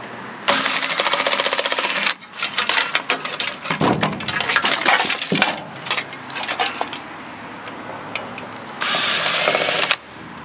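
Ryobi cordless drill/driver spinning out screws from a sheet-steel UPS chassis in two bursts: one starting about half a second in and lasting about a second and a half, and a shorter one near the end. Between them come a few seconds of metal clinking and clattering as the parts are handled.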